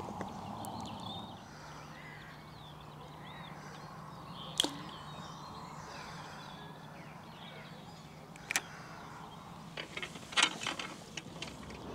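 Float rod cast out over a lake: a sharp swish of the rod with a quick falling tail about halfway through, a single click a few seconds later and small clicks near the end, with birds chirping and a faint low hum.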